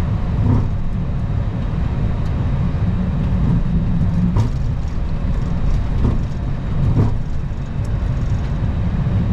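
Steady low rumble inside the flight deck of a Boeing 737-800 on the ground, with a few faint knocks scattered through it.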